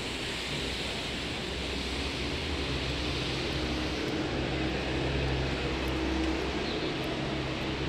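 Steady, even hiss of background ambient noise with a faint low hum underneath, swelling slightly partway through.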